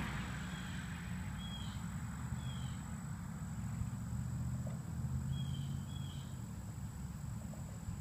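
Quiet field ambience: a steady low hum and a thin, steady high whine, with four short, slightly falling high chirps from a distant bird, in two pairs.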